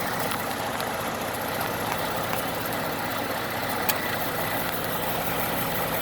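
2012 Ford F-150's 3.5-litre EcoBoost twin-turbo V6 idling steadily, with one sharp tick about four seconds in.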